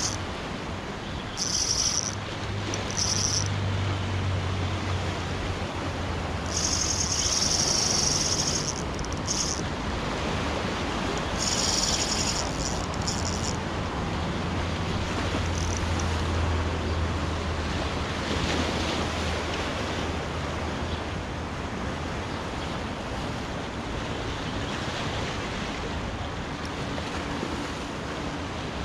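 Sea surf washing against the shore in a steady rush, with short bursts of a higher hiss a few times in the first half.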